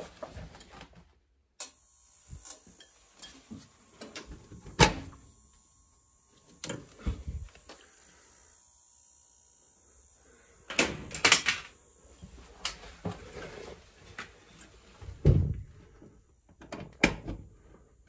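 Irregular knocks and clunks of things being handled around a boiler cabinet, with quiet stretches between. The loudest knocks come about five seconds in and in clusters around eleven and fifteen seconds.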